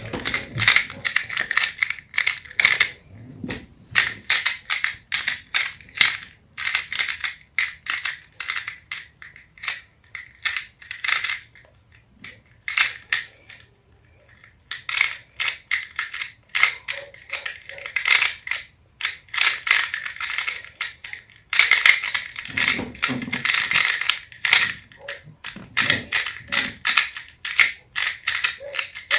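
Rubik's cube being turned: fast, irregular runs of plastic clicks and clacks, coming in flurries with short pauses, the longest near the middle.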